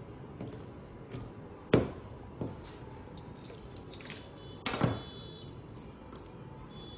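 Scattered light clicks and a few sharp knocks, the loudest about two seconds in and near five seconds in, over a faint steady hiss.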